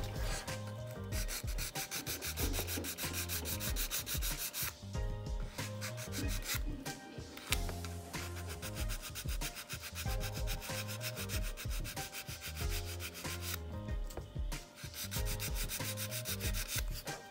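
A finer-grit hand nail file rubbing back and forth over a sculpted acrylic stiletto nail in quick, repeated scraping strokes, smoothing out the shape after coarse filing.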